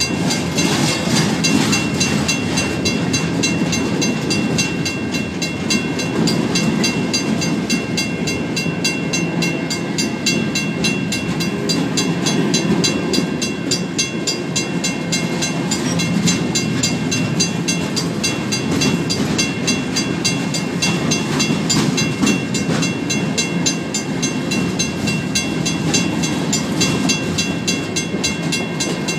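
Empty freight gondola cars rolling past with a steady rumble of steel wheels on rail. Over it a WCH mechanical crossing bell rings in quick, even strokes.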